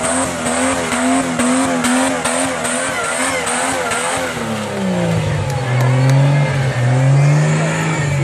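Engine of a modified off-road 4x4 revving hard as it claws up a muddy bank, the revs held high and wavering about twice a second as the tyres grab and slip. About halfway through the revs drop as it crests the top and rolls on at lower revs.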